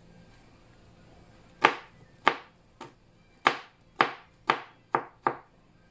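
Kitchen knife chopping garlic on a cutting board: about eight sharp strikes, roughly two a second, starting a little over a second and a half in.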